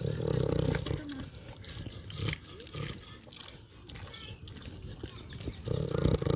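Pig giving two long, low, rough grunts of about a second each, one at the start and one near the end, with quieter clicks between.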